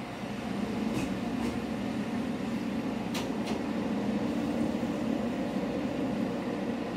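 MRT300 diesel railcar running along the line, heard from inside the cab: a steady engine and running drone, with a few sharp wheel-on-rail clicks about a second in and again around three seconds in.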